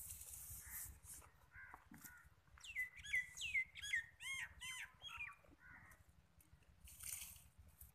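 A bird calling in a quick run of about eight short, downward-swooping calls in the middle. Softer rustling of dry twigs and leaves comes at the start and again near the end.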